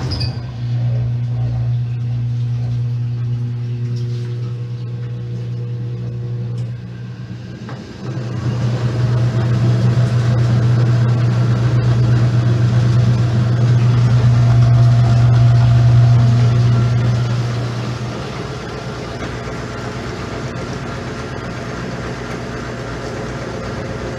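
Washing machine running with a steady motor hum, which grows louder about eight seconds in and drops back again about ten seconds later.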